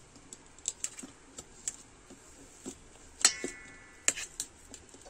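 A fork mashing boiled potatoes in a metal bowl: irregular clicks and scrapes of the tines against the metal, with one louder clink a little past three seconds in that rings briefly.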